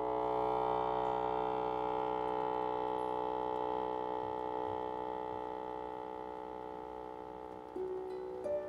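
Bayan (Russian button accordion) holding one long, rich chord that swells in and then slowly fades away, with new single notes coming in near the end.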